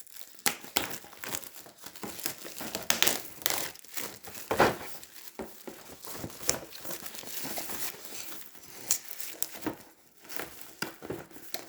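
Plastic wrapping being crinkled and pulled at by hand in a struggle to tear it open, with irregular crackling throughout.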